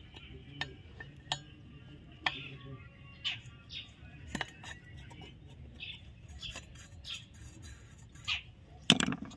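Steel screwdriver clicking and scraping against the screw heads on an electric water pump motor's fan cover as the screws are loosened, in short scattered ticks, with a louder clatter near the end.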